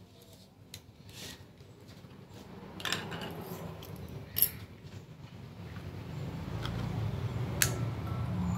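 Small metallic clicks and clinks of a brass lighter being handled and reassembled: the insert is fitted back into its case, with one sharp click near the middle. Music fades in over the last few seconds and becomes the loudest sound.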